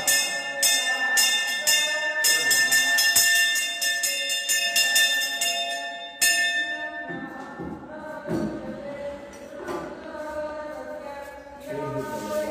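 Brass hand bell (puja ghanta) rung rapidly and continuously during an incense offering, stopping after a last stroke about six seconds in. A voice chanting softly follows.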